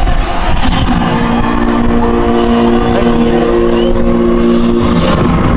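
Ballpark sound-system music holding one long, steady chord for about four seconds, breaking off near the end, over a low rumble of wind on the microphone.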